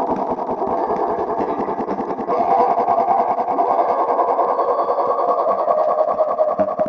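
A human sneeze slowed down enormously, its drawn-in 'ah' stretched into a continuous buzzing drone with a rapid, even flutter. About two seconds in it grows louder and the tone lifts a little.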